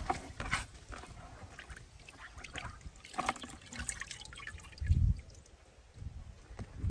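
Water dripping and splashing as a wet handful of red ants is scooped from a plastic bucket of water, with scattered small clicks and rustles. A dull low thump comes about five seconds in.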